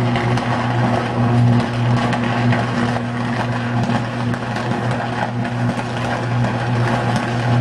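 Short-circuit arc at a substation transformer, still burning: a loud, steady low buzz with dense crackling on top.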